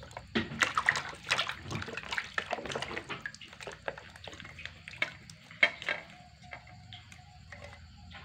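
Herb leaves being washed by hand in water: irregular splashing and dripping, thickest in the first few seconds, with one sharper splash about five and a half seconds in.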